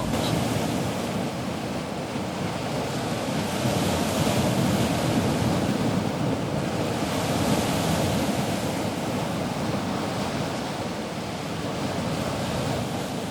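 Sea waves washing, with wind: a steady rushing noise that swells and eases gently every few seconds.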